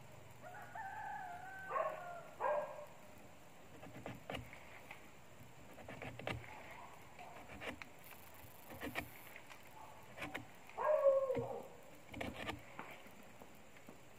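A rooster crowing twice, about a second in and more loudly near the end, over scattered sharp taps and knocks of a toddy tapper's knife working on a bound coconut flower spathe.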